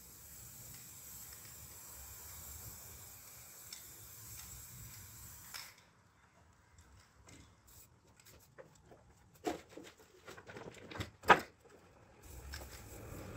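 Faint hiss of an aerosol spray-paint can that cuts off abruptly about halfway through. A few scattered knocks and clicks follow, the loudest a sharp click a little before the end. Near the end a low rumble starts to rise.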